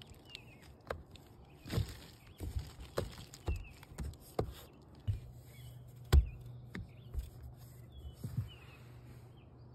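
Irregular knocks, bumps and rustles of someone moving about and handling things inside a car, with one louder thump about six seconds in. Small birds chirp faintly outside, and a low steady hum comes in about halfway through.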